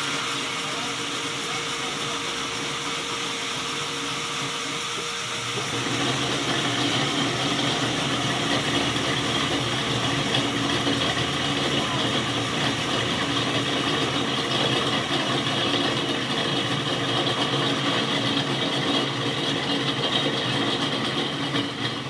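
Band sawmill running as a jackfruit log on its carriage is fed through the blade. The sound gets louder and fuller about six seconds in.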